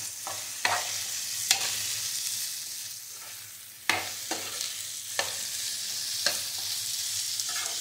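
Fried soya chunks and capsicum being stirred in a sizzling non-stick frying pan: a steady high sizzle with the spatula knocking against the pan at irregular moments, about nine times.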